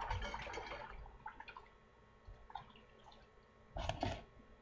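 Hands being washed in hot soapy water: faint splashing and dripping, with a short louder splash about four seconds in.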